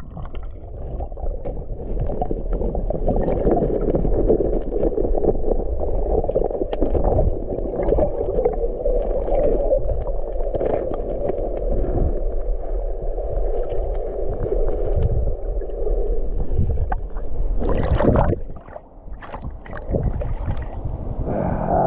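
River water rushing and gurgling in a steady, muffled churn, as heard from under the surface. About eighteen seconds in there is a splash, and the water then goes quieter.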